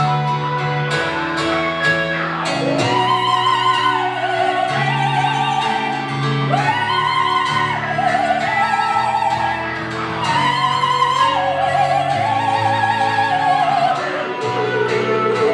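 Operatic soprano singing long held high notes with wide vibrato in three phrases, over steady piano and guitar chords.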